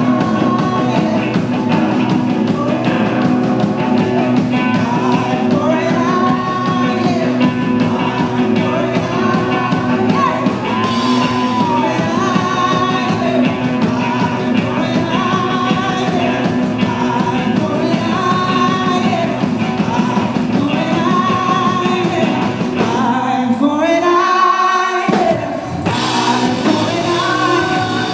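A rock band playing, with a singer's voice over the band. The low end drops out for a couple of seconds about 23 seconds in, then the full band comes back.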